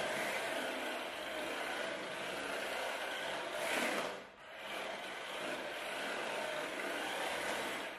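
1/16-scale four-wheel-drive RC drift car (SG216 Pro) with a brushless motor whining as it drifts on a tile floor, its hard drift tyres scrubbing. The sound swells about four seconds in, then drops off briefly.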